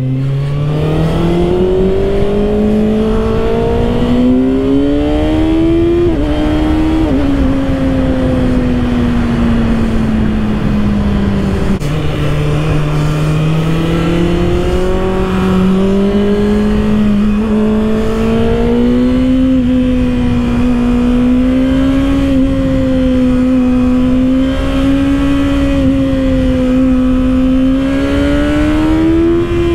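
2024 Kawasaki ZX-6R's 636 cc inline-four engine pulling hard through the gears, its pitch rising and then falling at upshifts about seven and twelve seconds in. After that it settles into a steady cruise that creeps slowly higher.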